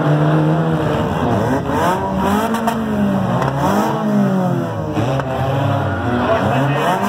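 Demolition derby car engines revving up and down, several at once, their pitch rising and falling over and over.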